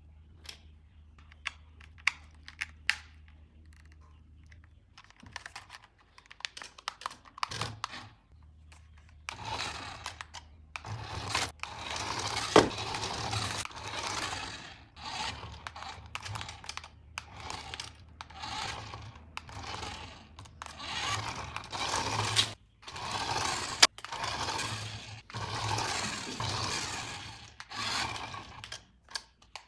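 Toy packaging being handled and opened: a few light clicks and taps, then, from about a third of the way in, repeated bursts of rustling and scraping with sharp ticks between them.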